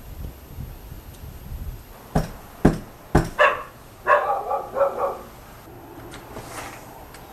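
Three sharp thumps about two seconds in, followed by a dog barking in a quick series of short barks.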